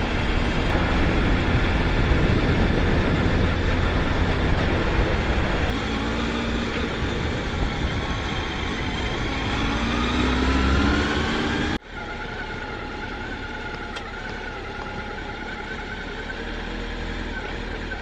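Motorcycle riding on the road: engine noise mixed with wind rush on the microphone, the engine pitch rising as it accelerates from about eight to eleven seconds in. About two-thirds of the way through the sound cuts off suddenly to a quieter, steady running rush.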